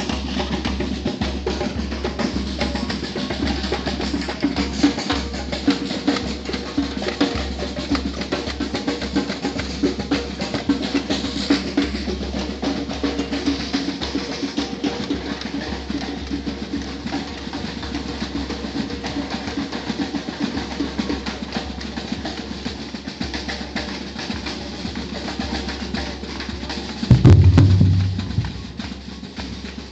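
Batucada drum ensemble (Brazilian samba percussion: bass and snare drums) playing a dense, steady rhythm. Near the end a much louder low-pitched burst lasts about a second and a half.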